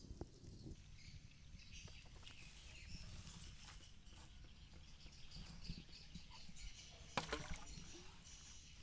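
Faint rural outdoor background of insects and birds chirping, with scattered light rustles and clicks of handling. About seven seconds in comes a louder brief knock and rustle.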